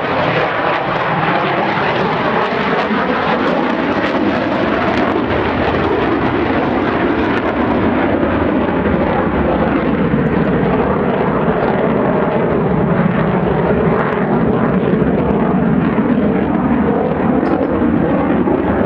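Jet noise from an F-16 fighter flying aerobatics overhead: a loud, steady jet rumble whose tone slowly sweeps up and down as the aircraft moves across the sky.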